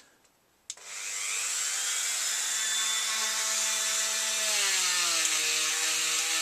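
Small rotary power tool clicked on about a second in, then running steadily with a high whine whose pitch sags a little near the end, as if loaded against the work.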